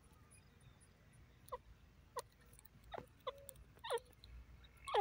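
Grey francolin giving faint, short calls, about six spaced through a few seconds, each a quick downward-falling chirp.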